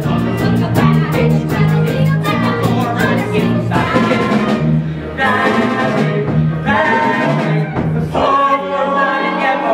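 A teenage cast singing together in a musical-theatre number, with a live band accompanying: steady bass notes under the voices and drums keeping the beat.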